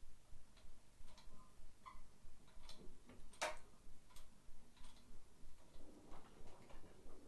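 Faint, regular ticking, about three ticks a second, with a few scattered clicks and one sharper click about halfway through.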